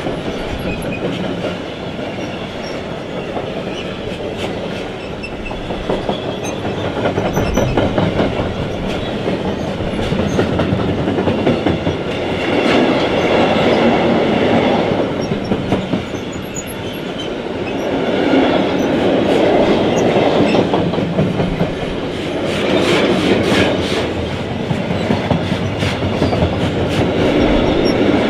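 Long freight train of covered wagons rolling past close by, its wheels clattering over rail joints in a steady rumble that swells and fades every few seconds.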